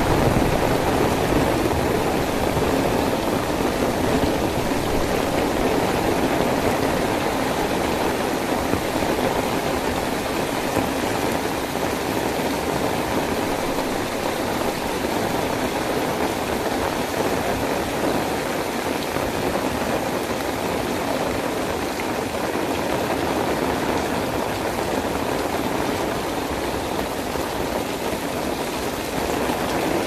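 Heavy rain pouring down steadily: a dense, even hiss of rain on the road and foliage, easing slightly and then swelling again near the end.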